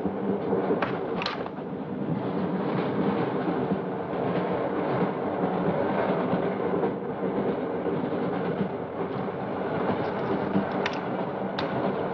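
Steady rumble and rattle of a train running along the rails, heard from inside a railway carriage, with a low steady hum. A few short sharp clicks come about a second in and again near the end.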